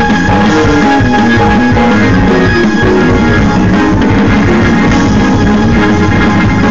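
Loud band music with guitar and drums and a steady beat.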